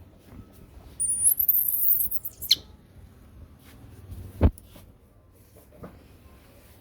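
Baby monkey giving a loud, very high-pitched squeal for about a second and a half, dropping in pitch at the end, followed a couple of seconds later by a single knock.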